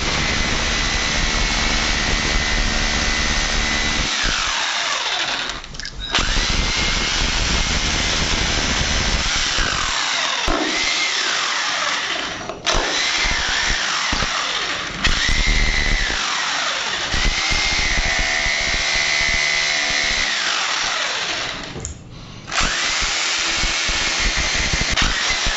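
Corded electric hand drill boring holes into window and door frames for termite treatment. It runs in several long runs of a few seconds each, and its whine falls away each time the trigger is released before it starts again.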